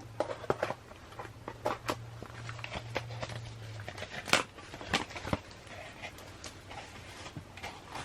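Packaging being opened and handled: irregular crinkles, clicks and taps, with a few louder snaps about four and five seconds in. A faint steady hum stops about four seconds in.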